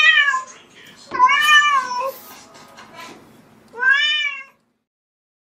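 A cat meowing three times. Each is a single drawn-out call that rises and then falls in pitch. The first is already sounding at the start, the second comes about a second in, and the third about four seconds in.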